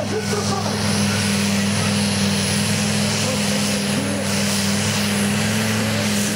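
Modified pulling tractor's engine running under full load as it drags the weight-transfer sled, a loud steady drone that holds one pitch throughout.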